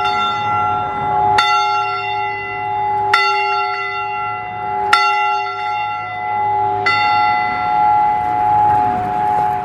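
A single church bell tolling, struck four times about two seconds apart. Each stroke rings on and overlaps the next, its hum swelling and fading between strokes.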